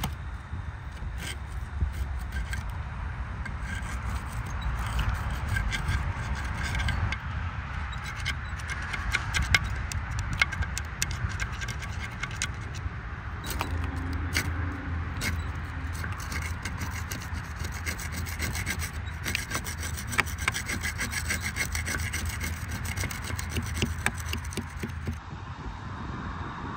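Continuous rubbing and scraping of an abrasive tool working the rusty iron poor box, with many small ticks through it and a low hum underneath.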